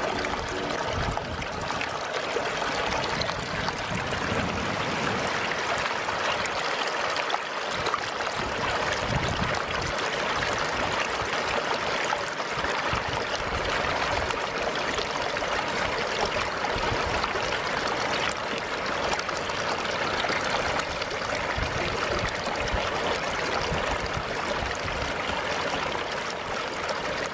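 Shallow river water running steadily over a sandy bed, a continuous, even rushing and trickling.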